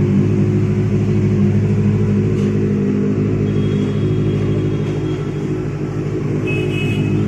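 Motorcycle engine idling steadily, a low even hum.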